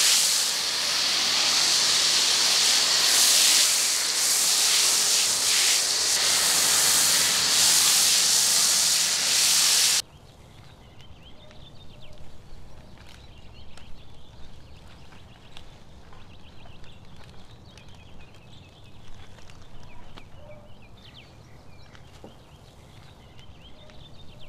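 Pressure-washer spray hissing steadily against the car, cut off abruptly about ten seconds in. After that, much quieter sound with scattered light clicks and taps.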